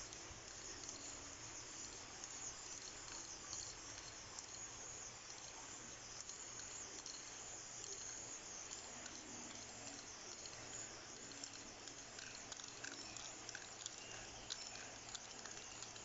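Aerosol spray-paint can hissing steadily as it sprays paint onto a rough concrete wall, with a few faint clicks in the last few seconds.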